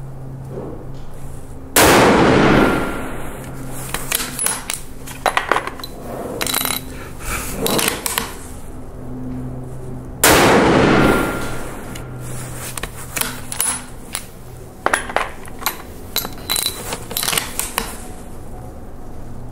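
Two rifle shots from an F-Class rifle on a front rest, about eight seconds apart, each a loud sudden report that fades over about a second. Small clicks and knocks come between the shots, over a low steady hum.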